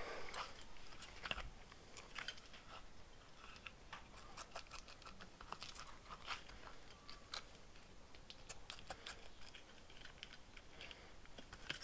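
Faint, scattered small clicks and rustles of a stretchy rubber grip sleeve being handled and stretched between the fingers.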